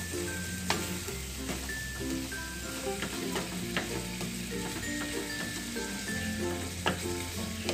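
Ground chicken sizzling in a frying pan as it is sautéed and stirred with a wooden spatula, with a few sharp clicks of the spatula against the pan. Soft background music with held notes and a low bass plays underneath.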